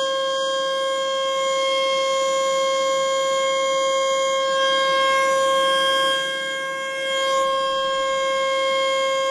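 ASC T-121 outdoor warning siren sounding the steady alert signal during a test: one continuous tone at a fixed pitch with strong overtones. It fades briefly about six seconds in and swells back as the rotating horn turns away and back.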